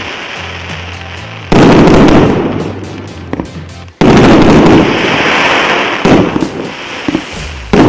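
Richter RBV-2971 fireworks cake firing volleys of 1–1.2 inch shells, with two sudden loud bursts about a second and a half and four seconds in, each dying away over a couple of seconds, then a run of sharp pops near the end. Background music plays underneath.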